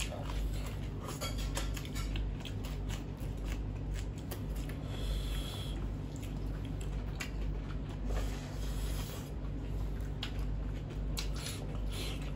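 Close-up eating sounds of two people eating by hand: wet chewing and mouth clicks, with fingers working rice against steel plates, as many small irregular clicks over a steady low hum.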